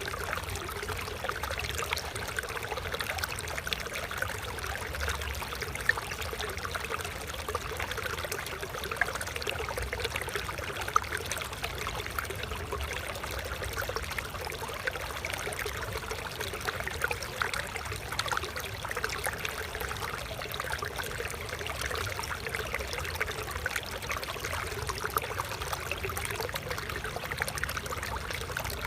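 Shallow flowing water trickling and splashing steadily, a small stream running over stones.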